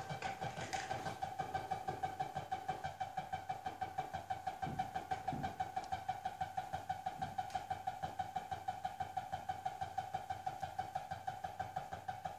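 Electronic tone with overtones, droning steadily and pulsing about five times a second: the audio signal being mixed through the sound blender and mixing desk.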